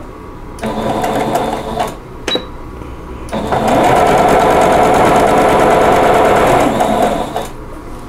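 Singer 7285Q Patchwork electric sewing machine stitching squares of fabric together: a short burst of about a second, a single click, then a longer run of about four seconds that speeds up at the start and slows down at the end.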